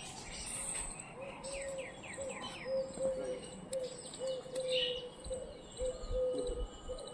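Small cage birds chirping, with a quick run of about five falling chirps a second and a half in, over pigeons cooing low and repeatedly.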